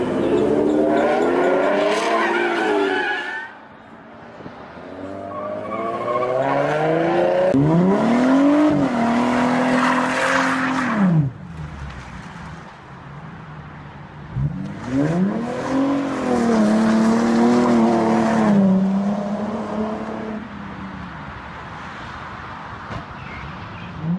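Ford Mustang engine accelerating hard, then twice revving up and holding at high revs while the rear tyres spin and squeal in a smoky burnout, with quieter stretches between.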